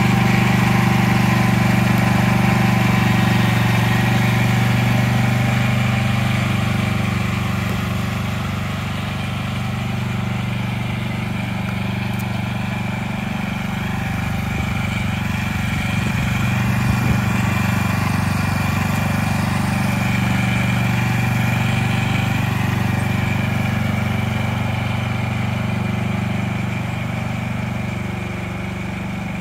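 Riding lawn tractor's engine running steadily with the mower blade disengaged, as the tractor drives itself along its path; the sound grows gradually fainter as it moves away.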